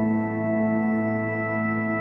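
Ambient new-age background music of steady, held sustained tones.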